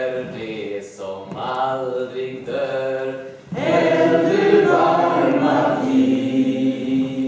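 A group of people singing a song together without accompaniment, in short phrases, growing louder about halfway through and ending on a long held note.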